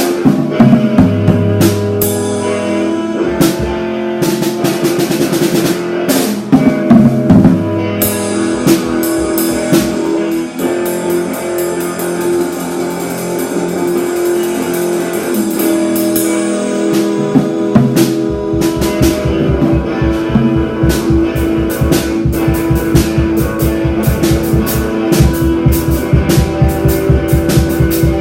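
Loud rock music with a drum kit and guitar: held guitar notes over drum hits, with a fast, steady low drum beat coming in about two-thirds of the way through.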